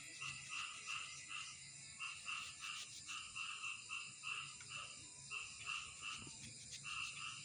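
Frogs calling in the background, a steady, evenly repeating croak about three times a second.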